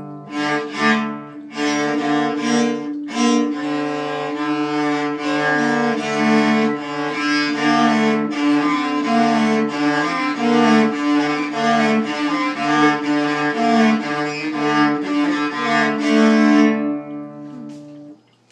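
Music played on a bowed string instrument in the cello range: a melody of short notes moving over a steady held low note, fading out and stopping near the end.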